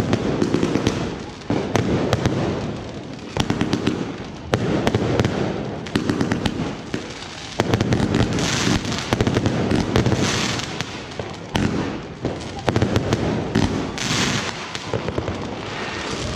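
Aerial fireworks going off overhead: rapid clusters of bangs and crackles, with stretches of hissing crackle about 8, 10 and 14 seconds in.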